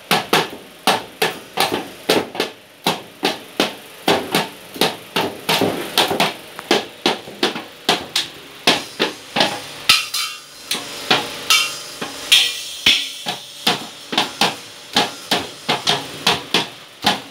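A child's toy drum kit of small drums and little metal cymbals, struck with sticks by a small child in an uneven, unsteady beat of about two to three hits a second.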